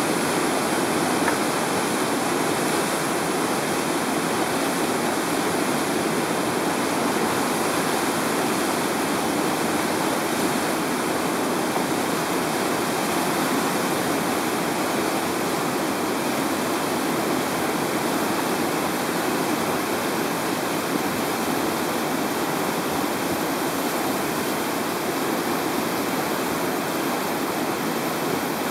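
Whitewater rapid rushing steadily: the continuous, even noise of a river wave breaking over a ledge, with no separate splashes standing out.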